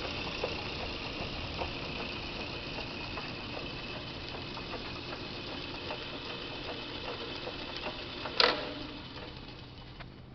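Logan 10 x 24 metal lathe with its 3-phase 2 HP motor running, a steady machine hum with a high whine. A single sharp clunk comes about eight seconds in, and the sound then slowly dies down.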